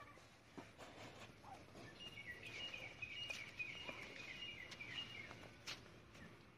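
Faint rural outdoor background in which a bird sings a rapid chattering run of high chirps for about three seconds through the middle, over a few scattered light clicks.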